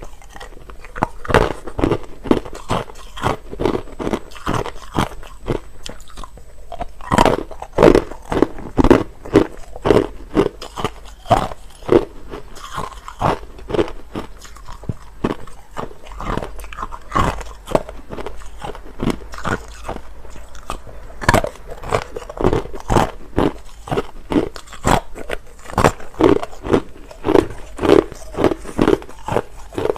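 Clear, hard crushed ice being bitten and chewed close to the microphone: loud, irregular crunches, several a second, with short pauses between mouthfuls.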